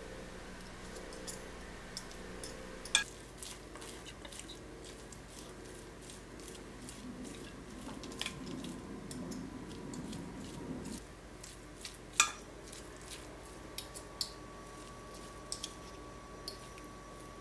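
Two metal forks shredding roast pork shoulder in a ceramic baking dish: irregular clicks and scrapes of the tines against the dish, with the soft squish of the tearing meat. Two louder clinks come about 3 seconds and 12 seconds in.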